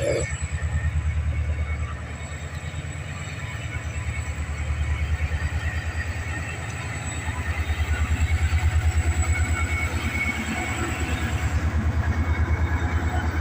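Low, steady rumble of a train on the move, with a fast, even flutter and slow swells in loudness.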